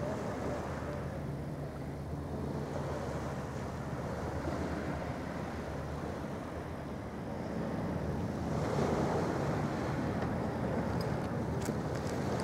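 Steady low drone of a ferry's diesel engines, with a rushing wind-and-water noise that grows louder about eight and a half seconds in.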